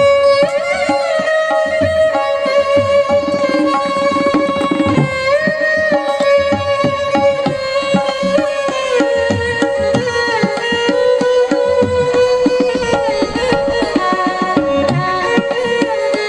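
Instrumental music: a sustained melodic line with sliding notes over quick hand-drum strokes.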